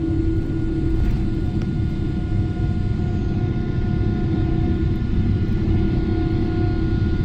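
Boeing 777-300ER's GE90-115B turbofan engines at takeoff thrust, heard from inside the cabin as a steady low rumble with a steady hum, as the jet rotates and lifts off.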